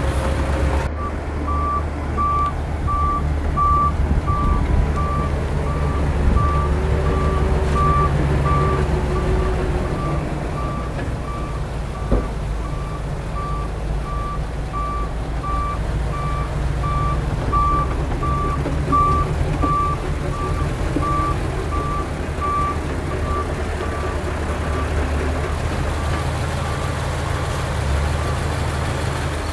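A heavy machine's reversing alarm beeping steadily over the low running of diesel engines. The beeping starts about a second in and stops shortly before the end, and there is one sharp click near the middle.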